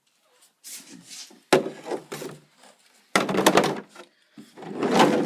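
A chainsaw carrying case being handled: a sharp knock about a second and a half in, another just after three seconds, and rubbing and scraping between them as the case is moved and opened.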